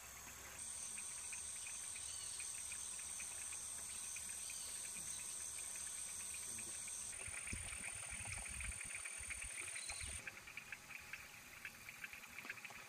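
Insects calling in tropical vegetation: a steady, very high-pitched drone that starts about half a second in and stops suddenly about 10 s in, with a fast, lower pulsing chirr joining about 7 s in and carrying on after it.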